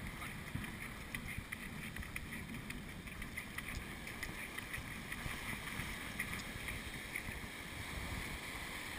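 Steady wind rumble on the microphone over the wash of small surf waves running up the beach.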